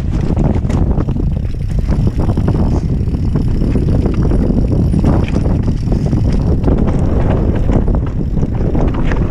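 Banshee Spitfire mountain bike descending a rough dirt and rock trail at speed: a steady rumble of wind buffeting the action camera's microphone and tyres on dirt, with frequent clicks and rattles from the bike over the rough ground.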